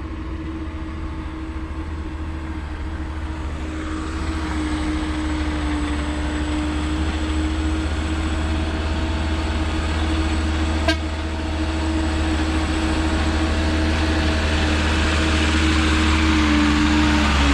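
A motor vehicle running, with a steady low engine rumble and a road and wind rush that builds and grows louder as it gets under way. There is a single sharp click about eleven seconds in.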